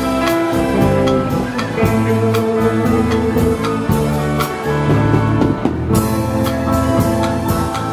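Live band playing a song: electric guitars over bass notes and a drum kit keeping a steady beat.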